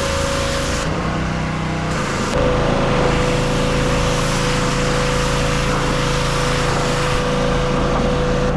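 Engine-driven pressure washer running steadily, with the hiss of the high-pressure spray from the wand hitting a vinyl fence. The hiss drops out about a second in and comes back louder after about two and a half seconds.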